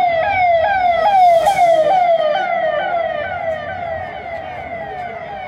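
Siren on a motorcade escort vehicle: a repeated falling wail, about two sweeps a second. It is loudest in the first two seconds and fades as the vehicle passes.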